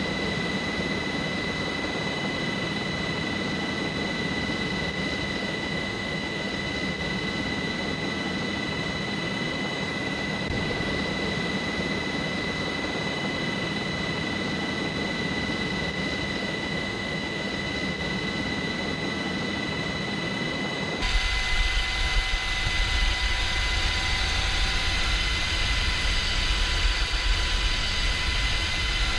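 Aircraft engine drone with a constant high-pitched whine, steady and without any blasts. About three-quarters of the way through it jumps abruptly to a louder, hissier noise.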